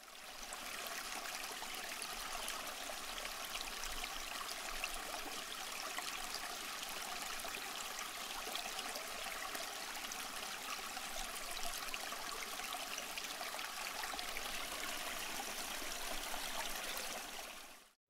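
Steady rush of running water, an even hiss without any tone, fading in at the start and fading out just before the end.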